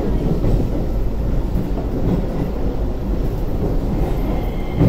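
Interior running sound of a Keio 8000 series electric train car: a steady rumble of wheels on rail. Faint steady high tones join near the end, and a short louder thump comes right at the end.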